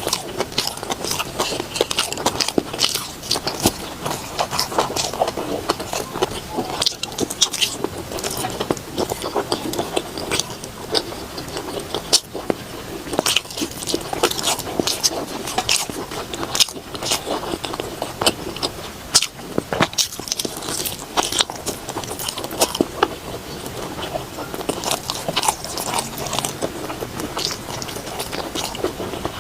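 A person chewing food close to the microphone: a dense, irregular run of small clicks and smacks from the mouth.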